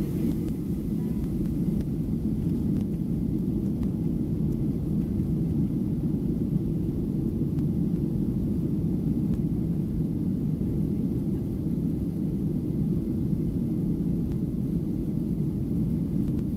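Steady low rumble inside the cabin of a Boeing 737-700 as its CFM56 jet engines run at low taxi thrust and the airliner rolls slowly along the runway.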